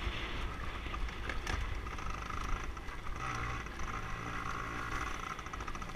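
Dirt bike engine running steadily while being ridden.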